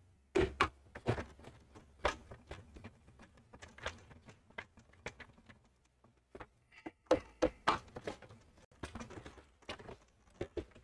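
Hard plastic body of a Sentro 48-style circular knitting machine being handled and shifted on the desk, giving irregular sharp clicks and knocks, loudest about half a second in and again around seven seconds in.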